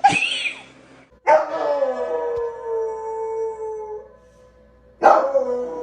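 A dog howling: a short yelp, then two long howls. Each howl starts high, drops quickly and then holds a steady pitch for two to three seconds.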